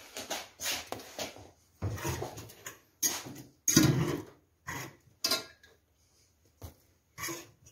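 Spoon and enamel cookware clattering as steamed yeast buns are handled between pot and bowl: a series of separate sharp knocks and scrapes with short gaps between them.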